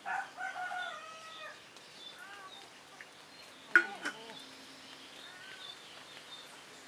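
A rooster crowing once, a call of about a second and a half, followed about four seconds in by a single sharp knock and a few faint bird chirps.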